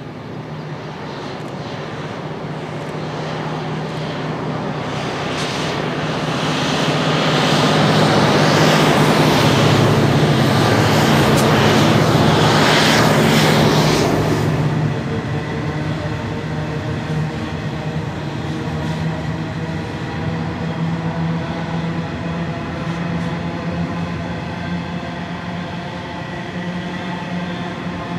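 Coal train passing close behind a pair of 90 class diesel-electric locomotives. The locomotives' engine hum and rush grow louder and peak as they go by, then drop suddenly about fourteen seconds in. What remains is the steady rumble and hum of the coal wagons rolling past.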